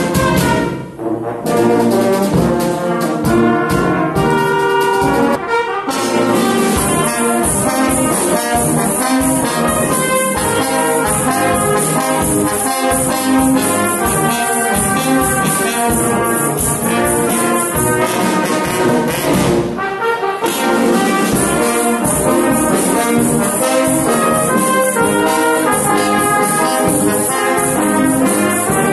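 Brass music playing, trombones and trumpets carrying a tune, with a brief drop about a second in and another about two-thirds of the way through.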